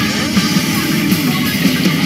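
Rock music with guitar and a stepping bass riff.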